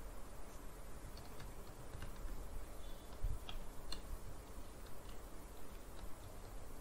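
Faint, irregular keystrokes on a computer keyboard as a username and password are typed, over a low steady background hum.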